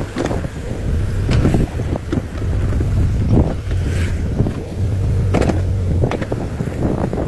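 Excavator's diesel engine running under load, a steady low hum, with irregular knocks and crunches every second or so.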